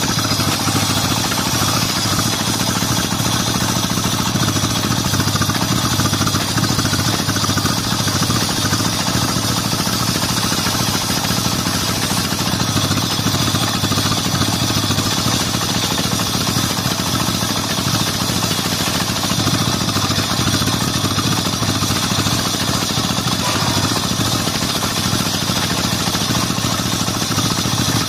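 Homemade table circular saw running steadily at speed as its blade rips lamtoro (leucaena) wood.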